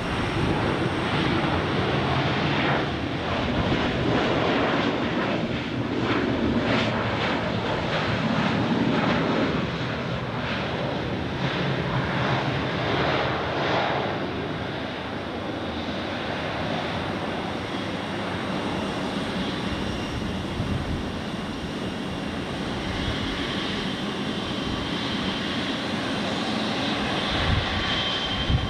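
Jet engine noise of a landing Boeing 737-800 airliner, loud and surging through the first half, then settling to a steadier, quieter run with a higher whine near the end.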